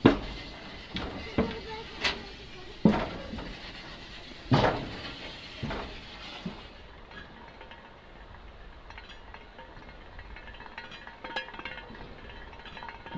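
A series of sharp clinks and knocks, about eight in the first six seconds and the loudest right at the start, then only faint ticking.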